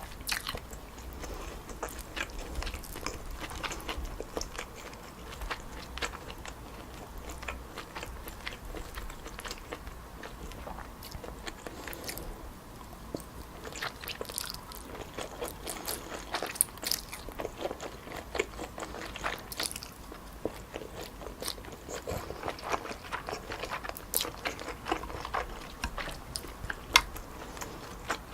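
Close-miked chewing of stir-fried wide glass noodles with pork and vegetables, with irregular sharp mouth clicks and crunches.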